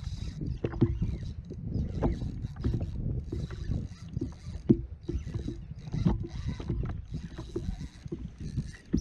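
Irregular knocks and clicks of gear being handled on a fishing kayak, over a steady low rumble of water and wind.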